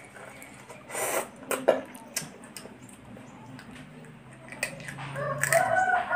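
Close eating sounds of cooked blue swimmer crab: wet sucking bursts and small shell clicks as meat is drawn from the pieces. Near the end a louder, drawn-out high whining tone comes in.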